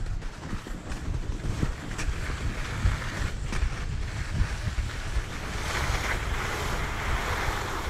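Skis sliding over packed snow with wind noise on a GoPro's microphone; the hiss of the skis grows louder in the last two seconds or so.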